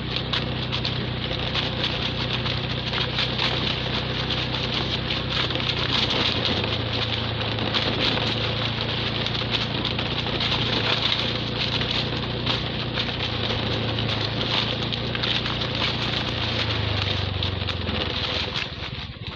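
Motorcycle engine running at a steady low speed under a constant rushing noise of riding; its note drops a little near the end as it slows.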